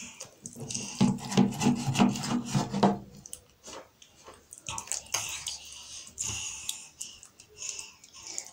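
Wet squelching and smacking of mashed food being squished and smeared by small hands on a table, with a low grunting vocal sound through the first three seconds.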